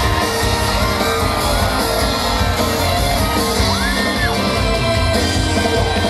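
Live rock-backed J-pop band playing an anime theme song, with a woman singing into a microphone and shouts from the crowd, heard from among the audience in a large hall.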